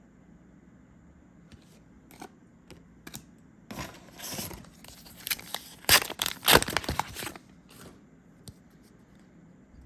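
A trading-card booster pack wrapper being torn open and crinkled, in a burst of sharp ripping and rustling from about four seconds in to past seven seconds. Light clicks of handled cards come before and after it.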